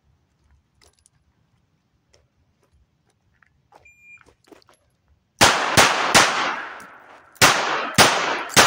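A shot timer beeps once. About a second and a half later a Colt Detective Special .38 Special snub-nosed revolver fires six loud shots: three in quick succession, a pause of over a second while the shooter moves to the next target, then three more.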